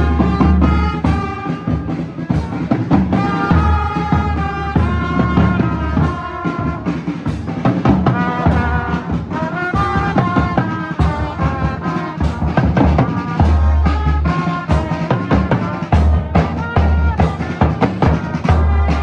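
Music with brass and drums, pitched horn lines over a steady, heavy bass-drum beat.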